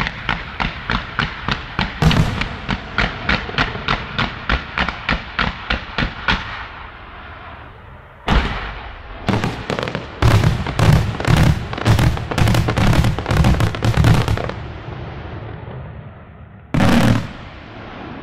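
Fireworks display: a fast, even string of sharp shots, about four a second, for the first six seconds. After a short lull comes a dense volley of deeper, heavier aerial shell bursts, and one more heavy burst near the end.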